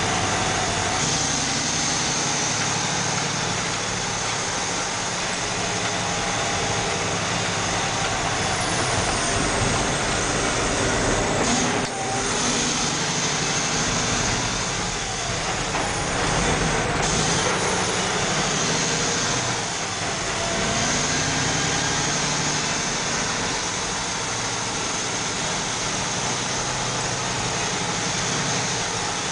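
Grain truck with an automatic transmission driving, heard from inside the cab: the engine runs steadily, its note rising and falling a few times.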